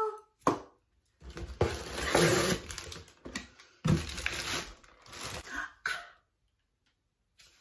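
Plastic packaging crinkling and rustling in several irregular bursts as a hot-air volume brush is taken out of its bag.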